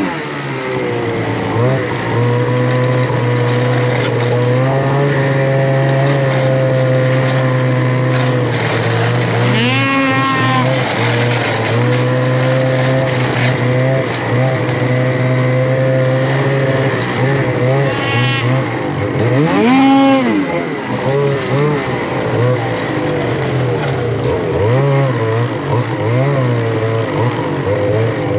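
Snowmobile engine running at a steady cruising note while riding, with the revs falling away at the start and two short rev-ups that rise and drop again, about ten and twenty seconds in.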